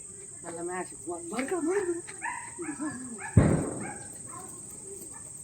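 A firecracker goes off with a single sharp bang about three seconds in, the loudest sound, fading quickly. It comes after a couple of seconds of high-pitched calls or shouts.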